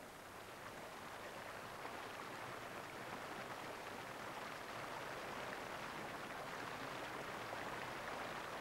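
Faint, steady rush of churning, foam-laden water, growing slightly louder as it goes.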